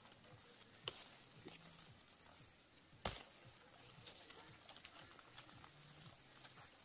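Near silence with a faint steady high hiss, broken by a few light knocks; the sharpest knock comes about three seconds in.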